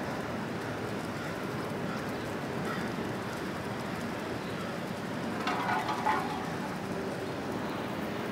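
Steady outdoor city noise under a storm sky, with a brief higher-pitched sound about five and a half seconds in.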